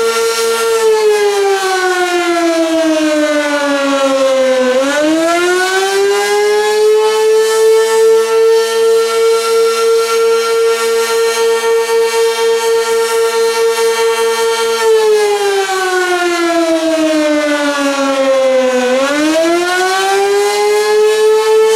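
Sentry 16V1T-B single-tone rotating electromechanical warning siren sounding the attack signal: a loud held tone that twice slides down in pitch over about four seconds, then climbs quickly back to the held tone. Its loudness pulses as the rotating horn sweeps past.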